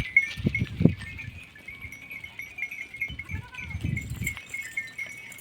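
Flock of sheep and goats, with one bleat about three and a half seconds in, over a steady high chirping and low rumbling thumps.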